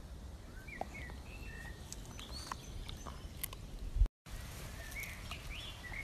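Garden birds chirping in short scattered calls over a steady outdoor background, with a few sharp clicks and cracks from a dog gnawing a stick. A low thump about four seconds in, then the sound cuts out for a moment.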